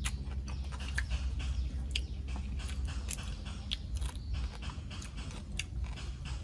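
Close-miked chewing of boiled giant tiger prawn meat, with wet mouth noises and scattered lip smacks and clicks. A low steady rumble runs underneath.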